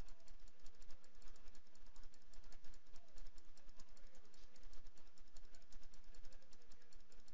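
Computer mouse clicked rapidly and steadily, several clicks a second, as stitch points are placed one by one in embroidery digitizing software.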